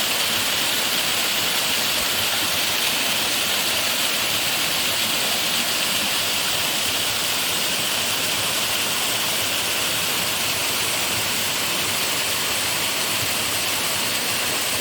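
Small mountain waterfall: a steady, unbroken rush of falling water.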